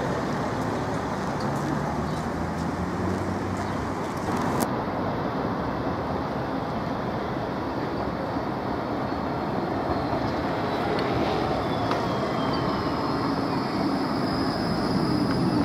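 Škoda 30T ForCity Plus trams running on a city street amid road traffic, a steady rumble and hiss. A faint high whine falls in pitch about ten seconds in.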